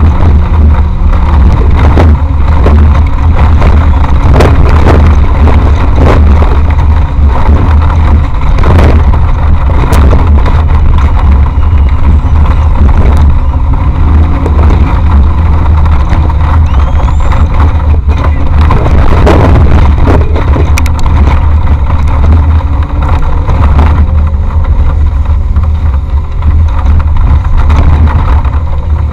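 Off-road race vehicle driving hard over rough ground, heard from on board: a loud, heavy low rumble with the engine rising and falling in pitch and frequent knocks and bangs as the vehicle jolts.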